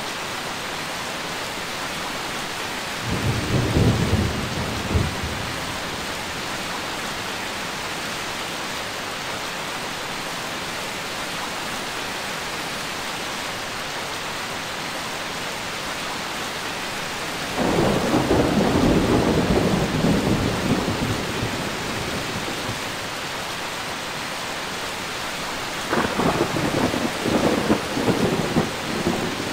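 Steady rain with three rolls of thunder: a short rumble about three seconds in, a longer one from about seventeen seconds that fades over several seconds, and an uneven, jagged roll near the end.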